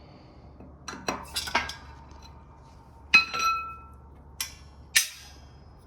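Metal tools and transmission parts clinking as they are handled on the bench: a few light knocks about a second in, one loud clink about three seconds in that rings on briefly, then two sharp clicks near the end.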